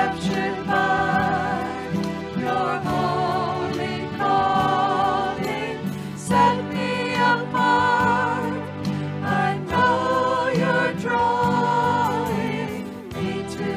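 A worship song: voices singing with instrumental accompaniment, in phrases of a second or two, with vibrato on the held notes over a steady bass.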